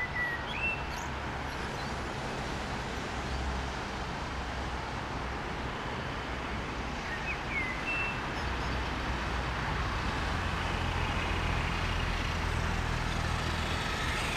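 Steady rushing outdoor noise with a low rumble that grows slightly stronger in the second half, and a few short high chirps about half a second in and again around seven seconds in.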